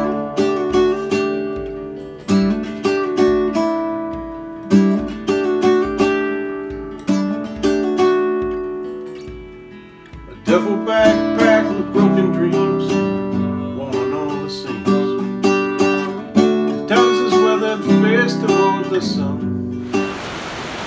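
Nylon-string classical guitar being fingerpicked: slow chords ringing out one after another, then a brief lull about halfway and busier picked notes until it stops just before the end.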